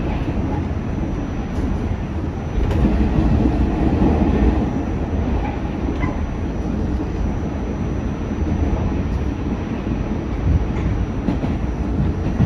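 R46 subway train running along the track with a steady rumble of wheels on rail; it swells louder for a couple of seconds about three seconds in.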